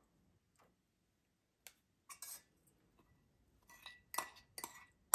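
Metal spoon clinking and tapping against a small ceramic bowl and a stainless-steel saucepan while egg yolks are scraped into the pan. After a quiet start come a few scattered clicks, then a quick run of sharp taps near the end.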